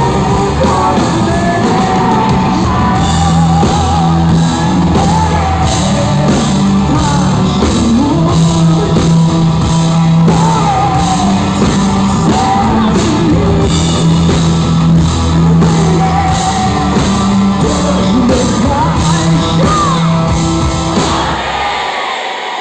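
Live rock band playing loudly, with drums, bass, guitar and keyboards under a woman's sung lead vocal and shouts from the crowd. The band stops just before the end.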